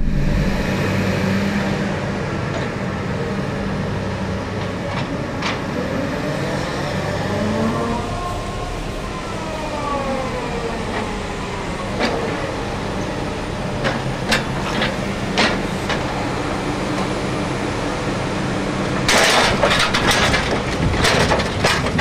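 Sennebogen 735 E timber handler's diesel engine and hydraulics running steadily, with a whine that rises and falls midway and scattered sharp clicks. Near the end comes a burst of clattering knocks from the grapple handling logs.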